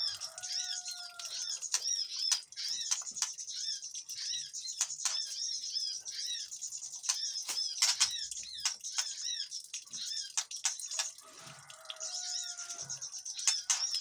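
Small aviary birds, with a white-rumped shama joining in, chattering in alarm: a dense run of rapid high chirps mixed with sharp clicking calls. A short held whistle sounds near the start and again about twelve seconds in.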